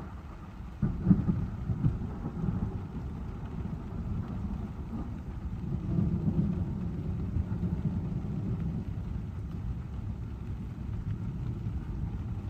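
Car driving in heavy rain, with a low rumble of thunder that rises suddenly about a second in and swells again around six seconds in.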